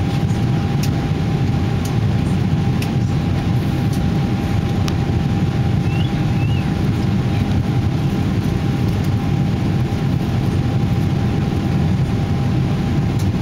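Steady in-flight noise of a Boeing 777-300ER's GE90 engines and rushing air, a deep even rush with a steady mid-pitched hum running through it.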